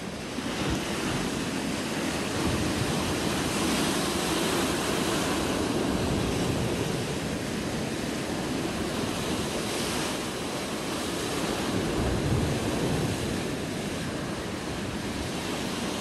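Rough sea surf breaking over rocks and against a seawall: a continuous rushing wash that swells and eases as the waves come in, with wind rumbling on the microphone.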